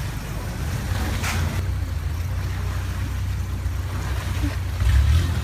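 Steady low engine rumble of a moving vehicle, with a brief hiss a little over a second in.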